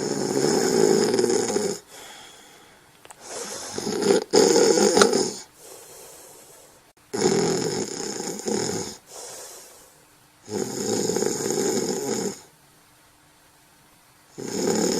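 Snoring in a slow, regular rhythm: four long, rasping snores about three and a half seconds apart, with a fifth starting right at the end.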